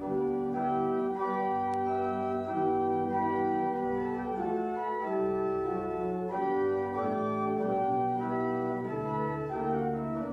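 Organ postlude: slow, sustained chords held and changed every second or so.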